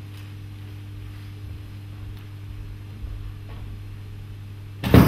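A steady low electrical hum with a few faint footfalls on the stage boards. Near the end comes one loud, sharp thump.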